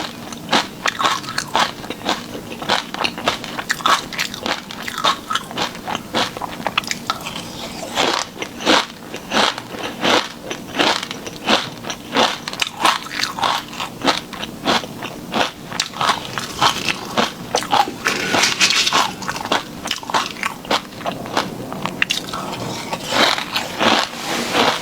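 Close-miked eating sounds: crunchy bites and steady chewing of sauced shrimp, a dense run of sharp crunches.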